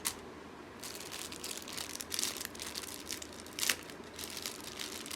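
Packaging crinkling and rustling in irregular bursts as the intercom's accessories are handled and unwrapped, with a few sharper clicks.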